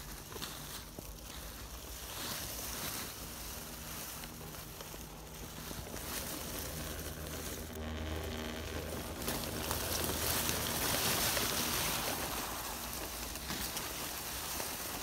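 Dry fallen leaves rustling and crackling under the tyres of an electric RC crawler truck (HB ZP1001, a TRX-4 clone) as it drives through them. A pitched whine, the truck's motor and gears, shows from about six to nine seconds in, and the leaf rustle grows louder from about nine seconds in.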